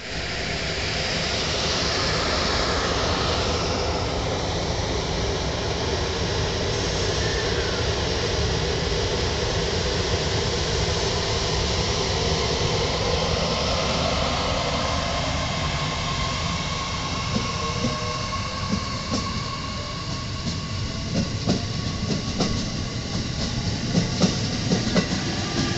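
JR East E501 series ten-car electric train accelerating away past the track side, its motors whining in gliding tones over a steady rumble. About two thirds of the way in, the clatter of wheels over rail joints comes in and grows toward the end.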